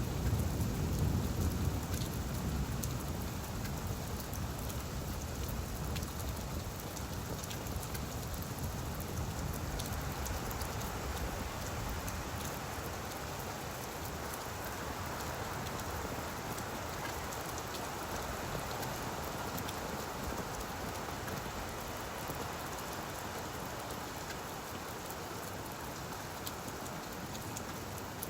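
Steady rain falling on leaves: an even hiss with many small drop ticks. A deep rumble at the start fades away over the first several seconds.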